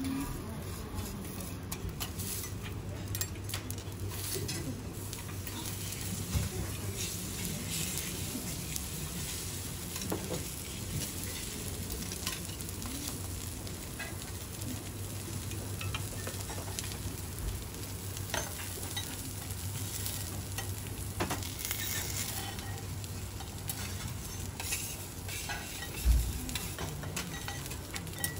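Pieces of beef steak sizzling on a hot steel teppanyaki griddle, with light clicks and scrapes of a steel knife, fork and spatulas against the plate. There is a steady low hum underneath and one louder knock near the end.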